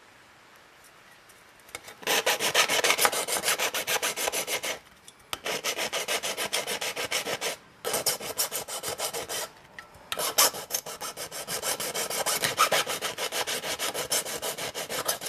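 A drill boring holes through the thin sheet steel of a tin can, the bit grinding and chattering against the metal in several spells of a few seconds each, with short pauses between.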